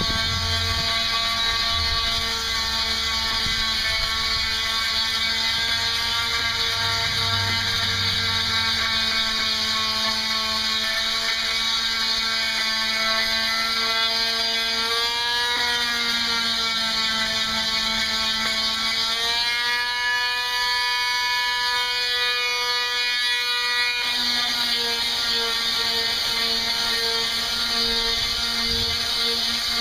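Bosch electric orbital sander with 60-grit paper running on teak, a steady motor whine. Its pitch shifts a few times midway.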